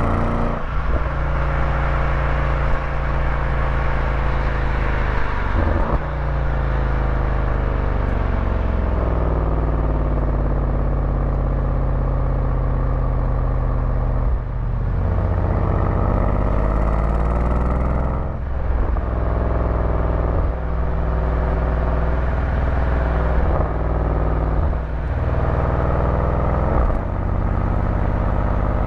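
A motor vehicle's engine running under way, heard from on board. Its pitch climbs and falls with speed, and it breaks off briefly several times with a drop in pitch at each gear change.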